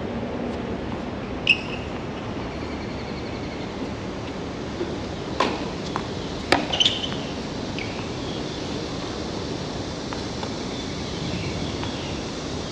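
Tennis balls struck by racket strings during a doubles rally on a hard court: a few sharp hits, about 1.5 s in, around 5.5 s, and a quick pair near 6.5–7 s, over steady outdoor background noise.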